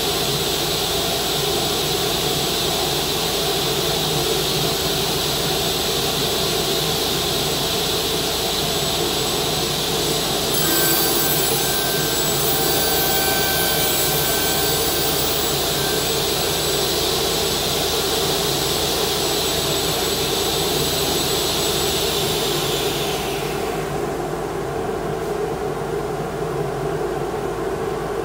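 Felder KF700S sliding table saw running with a steady high whine, its tone changing from about 11 to 16 seconds in as the blade cuts along a board's edge. Near the end the saw is switched off and its whine drops away, leaving a steady lower hum.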